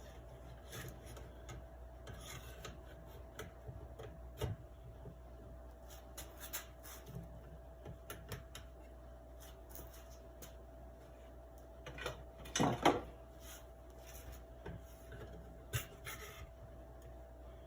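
Small parts of a Daisy 105 Buck BB gun being handled and fitted by hand. There are scattered light clicks and rubs, with a louder clatter about twelve seconds in, over a steady faint hum.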